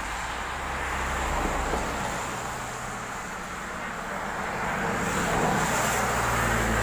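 A motor vehicle's engine running with a steady low hum, under a constant outdoor hiss of road and air noise.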